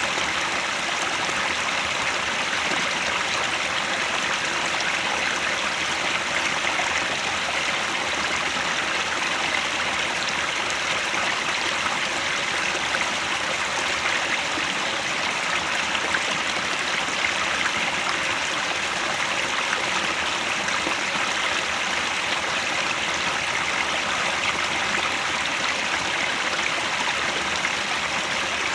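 Headwater stream flowing: a steady, even rush of running water that holds the same level throughout.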